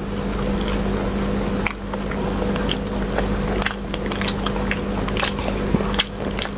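Close-miked chewing and mouth sounds of people eating chicken reshmi kabab, with scattered small wet clicks. A steady electrical hum runs underneath.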